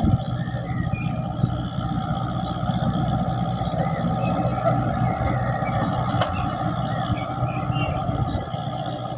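The Missunde II ferry's engine running with a steady low drone. A faint, regular high chirping, about three a second, runs over it.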